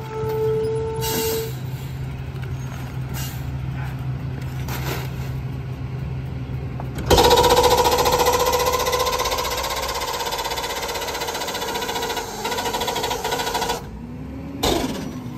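McNeilus rear-loader garbage truck idling, then about seven seconds in the packer hydraulics kick in with a sudden jump in loudness: the engine speeds up under the hydraulic pump and a whining hydraulic note runs for about seven seconds before dropping off near the end.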